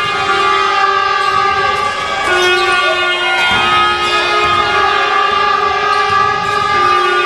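A loud, steady droning tone with many overtones, like a held horn note, that steps slightly down in pitch, back up, and down again.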